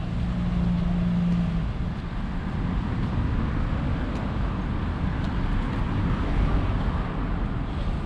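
Road traffic noise: a continuous rumble of passing vehicles, with a steady engine hum over the first second and a half or so.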